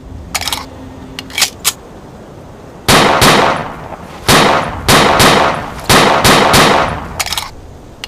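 Walther P38 9 mm pistol sound effect: a few sharp metallic clicks of the pistol's action, then a string of loud, echoing shots fired one after another over about four seconds, and a couple more clicks near the end.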